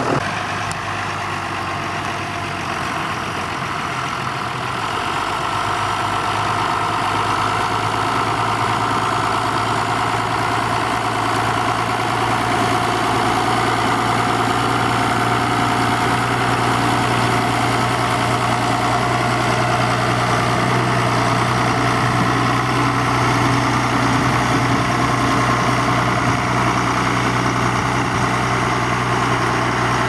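John Deere 6800 tractor's diesel engine running steadily under load as it pulls a reversible plough.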